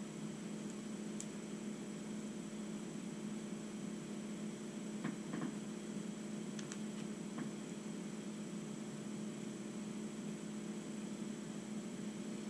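Steady low electrical hum with a faint high whine above it, and a few faint soft clicks about five to seven seconds in.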